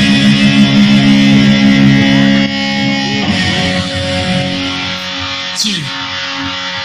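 Electric guitar, a Les Paul-style solid body through a Marshall amp, in a sound check. A held chord rings loudly and drops away about two and a half seconds in. Quieter notes follow that waver and bend in pitch as the tuning pegs are turned, and a quick falling sweep comes near the end.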